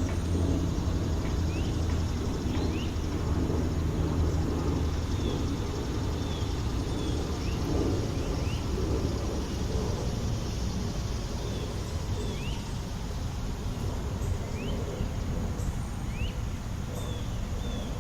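City park ambience: a steady low rumble of traffic, with an engine hum that fades out about five seconds in. Short bird chirps sound every second or so over the top.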